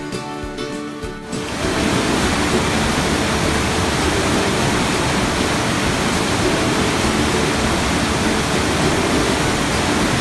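White-water river rapids rushing over boulders: a loud, steady roar of water, with background music underneath. The water sound is weaker for the first second and a half, where the music comes through more plainly.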